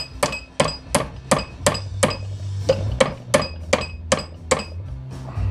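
Hammer striking a small metal part held on the anvil of a bench vise, about three blows a second, each with a short metallic ring; the blows stop about four and a half seconds in.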